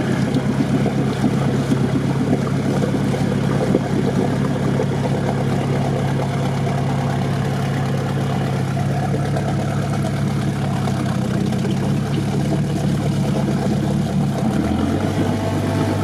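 Off-road 4x4's engine running steadily under load as the vehicle inches forward through a deep bog with its rear end floating. The engine note drops lower near the end.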